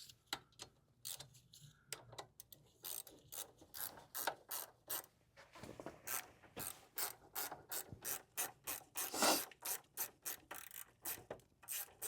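A ratcheting 12 mm wrench clicking in a fast, uneven run of strokes as it backs out a bolt on a Brembo motorcycle brake caliper.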